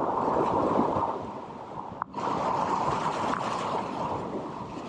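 Rushing whitewater of a river rapid, a steady wash of water noise. It cuts out for a moment about two seconds in.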